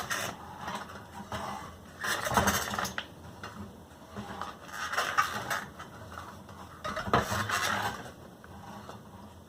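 A flat bicycle inner tube being pulled out from between the tire and the rim as the wheel is turned by hand: rubber rubbing and rustling against the rim, louder in three bursts, about two, five and seven seconds in.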